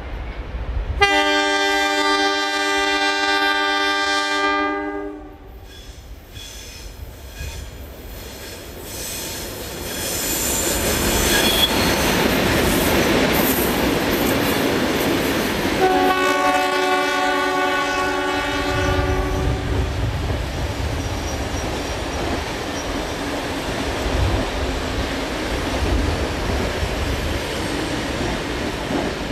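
The leading locomotive of a pair of ALCO diesel-electric locomotives, NSW 44 and 45 class, sounds its multi-note horn twice: one blast of about four seconds near the start and one of about three and a half seconds midway. From about ten seconds in, the locomotives' engines and the train's wheels make a loud, steady rumble as the train passes close by.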